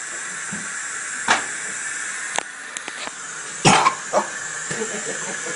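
A person coughing from a spoonful of dry ground cinnamon caught in the throat: four sharp coughs, the loudest and longest about three and a half seconds in.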